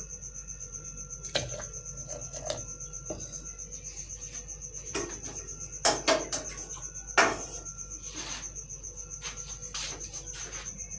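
A few scattered knocks and clinks of dishes and utensils being handled, the sharpest about six and seven seconds in, over a steady high-pitched whine.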